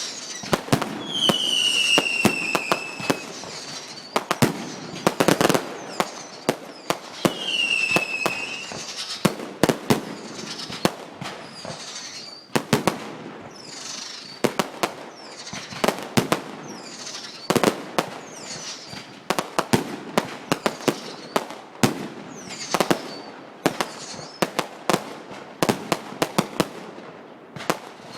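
Consumer fireworks going off: a fast run of sharp bangs and crackle, with whistles falling in pitch. Two loud whistles come in the first few seconds and fainter ones recur through the rest.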